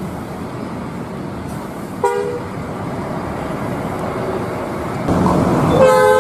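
Large bus driving past with its engine running, giving a short two-tone horn toot about two seconds in. Near the end a louder bus engine and a longer two-tone horn blast begin.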